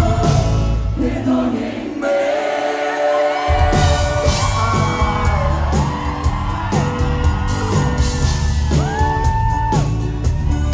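Live grupera band playing loudly over a large hall's PA, with drums, electric guitar and bass and singing. The bass and drums drop out about a second in, and the full band comes back in at about three and a half seconds. Whoops and yells come from the crowd.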